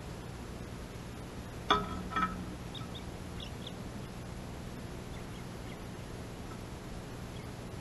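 Two loud calls from a bird, half a second apart, about a second and a half in, followed by a few faint, short, high chirps from small birds.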